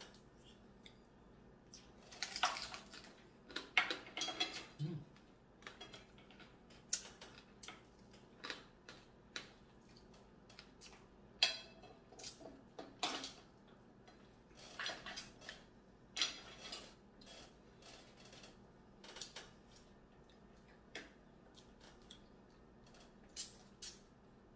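Eating blue crab cooked in coconut milk: irregular cracks and clicks of crab shell being broken open and picked at, with a few longer wet, noisy stretches and the odd clink of dishes or cutlery.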